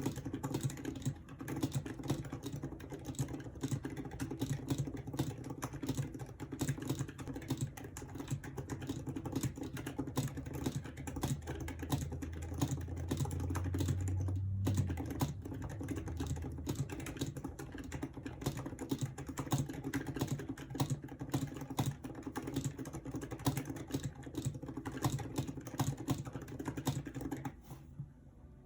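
Fast, continuous typing on a Razer Huntsman Mini keyboard with linear optical red switches and doubleshot PBT keycaps: a dense run of keystroke clacks, with a brief pause about halfway through and the typing stopping just before the end.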